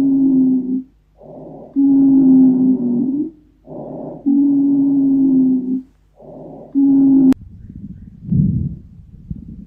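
Breath sounds as heard through a stethoscope: repeated breaths, each a short, soft inhalation and then a longer exhalation that carries a steady musical wheeze, the sign typical of bronchial asthma. About seven seconds in, the breathing cuts off with a click and gives way to low, muffled thumps.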